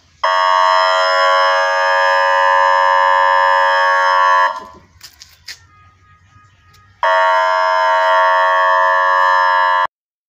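Warning alarm device sounding a loud, steady electronic alarm tone twice, the first for about four seconds and the second, after a short pause, for about three seconds.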